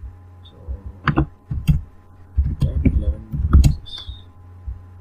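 Laptop keyboard typing: a few single keystrokes, then a quick run of keys in the second half, over a steady low hum.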